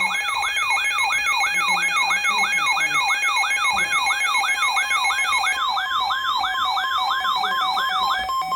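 Electronic warning alarm: a rapid whoop of rising pitch sweeps, about three a second, over steady tones. The sweeps stop abruptly about 8 s in, leaving a steady two-note tone.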